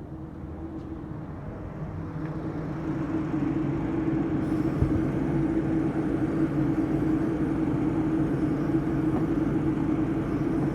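Car running with its AC blower on high, a steady hum that swells after a couple of seconds. From about four seconds in, an aerosol can of disinfectant hisses as it is sprayed into the cowl's fresh-air inlet.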